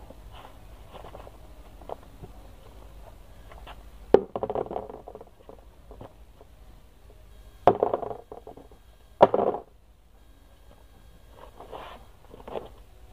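Handling noises: three sharp knocks, about four, eight and nine seconds in, each followed by a short scraping rustle, with softer rustling near the end, as a plastic washtub and clothes are moved about and pulled from a woven bamboo basket.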